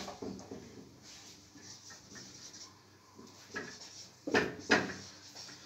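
Marker pen scratching on a whiteboard as words are written, with a couple of louder strokes about four and a half seconds in.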